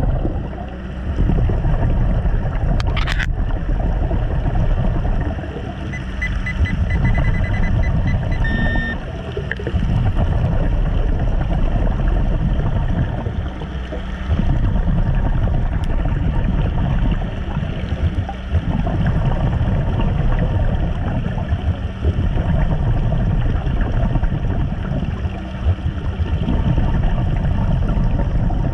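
Underwater rush of a diver breathing through a regulator, the noise of air and bubbles easing off briefly every four seconds or so. A short run of faint high beeps comes about six to nine seconds in.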